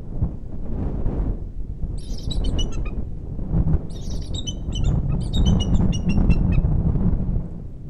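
Bald eagle calling: three runs of rapid, high, falling chittering notes, over a steady low rumble of wind on the microphone.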